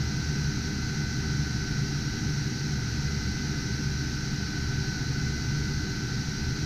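Steady whir of computer cooling fans, with a low hum and a thin constant whine over it.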